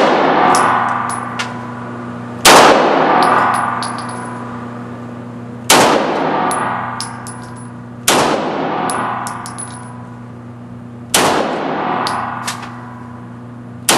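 Handgun fired four single shots, two to three seconds apart, each a sharp crack followed by a long echo off the walls of an indoor range.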